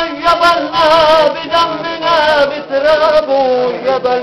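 A man singing a Lebanese mijana and 'ataba folk song solo, with long held notes and wavering ornaments, in phrases broken by short breaths. The melody sinks lower toward the end.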